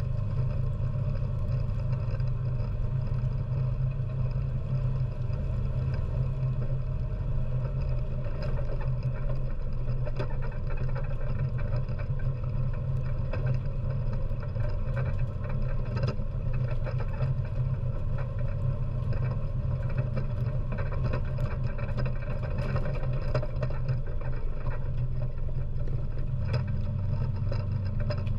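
ATV engine running steadily at an even speed while driving over a gravel and dirt road, with scattered faint ticks throughout.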